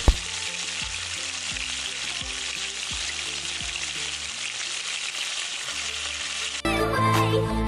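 Marinated chicken frying in hot oil, a steady loud sizzle. There is one sharp knock just at the start, and music cuts in suddenly near the end.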